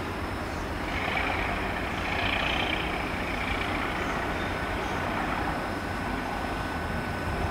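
Class 37 diesel locomotive running as it hauls coaches slowly over pointwork, a steady low rumble, with a high hissing squeal rising about a second in and fading by about four seconds.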